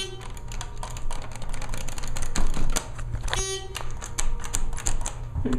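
Hydraulic elevator car in motion: a steady low hum, with a rapid, irregular run of light clicks and two short pitched tones, one at the start and one about three and a half seconds in.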